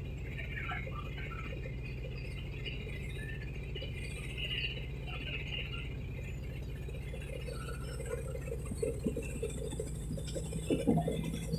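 Steady low hum of a boat engine driving the barge along the river, with faint scattered chirps over it and a few light knocks near the end.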